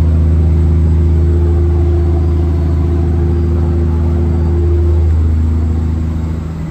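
Cargo ship's engine droning steadily, heard from inside the vessel, with a deep hum and several higher steady tones. A higher tone drops away about five seconds in, and the sound eases slightly near the end.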